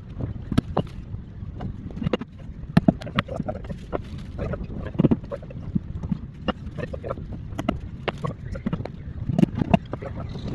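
Wind rumbling on the microphone, with irregular light knocks and clicks scattered throughout.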